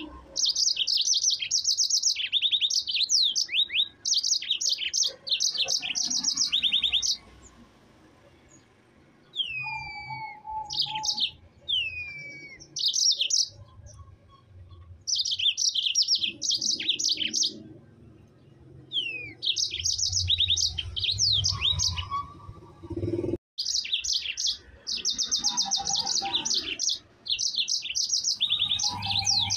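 Yellow-fronted canary (Mozambique canary) singing in full voice: repeated bursts of fast rolling trills, high-pitched, with a few falling whistled notes between them and short pauses between phrases.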